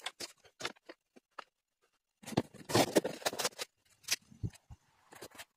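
Scrap-wood fire crackling and popping, sharp irregular pops, with a louder, denser stretch of crackle and rustle lasting over a second starting about two seconds in.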